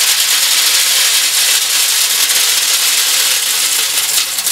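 Corn kernels pouring in a steady stream from a bucket into a metal drum: a dense, continuous rattling hiss of grain hitting the metal and each other.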